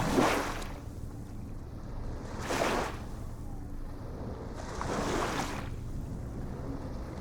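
Small waves washing in, three surges of hiss about two and a half seconds apart over a steady low rumble of water.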